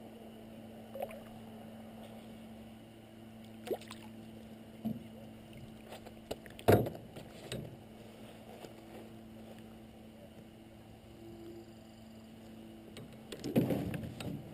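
Paddle and fishing gear knocking against a canoe's hull and gunwales: a few scattered clunks, the loudest about halfway through, and a cluster of knocks near the end as the paddle is laid across the boat.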